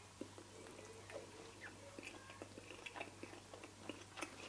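Faint chewing of a bacon-wrapped cocktail sausage: a run of small, irregular mouth clicks and soft crunches.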